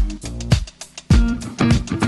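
Instrumental background music with a steady beat, thinning out briefly about halfway through.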